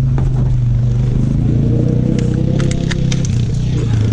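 Four-wheeler (ATV) engine running at a steady pitch that rises a little in the middle, with several sharp clicks and rattles over it.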